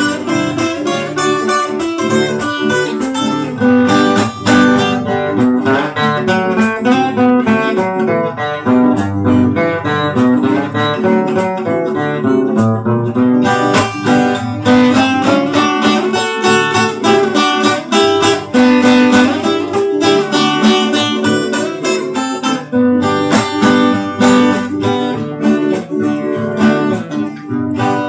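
Two acoustic guitars (Brazilian violões) playing an instrumental piece together: a run of quick plucked melody notes over chords.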